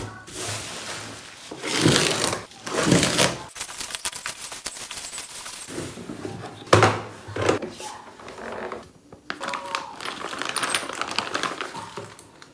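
Metal tools clattering and clicking as they are handled, with several louder knocks about two, three and seven seconds in.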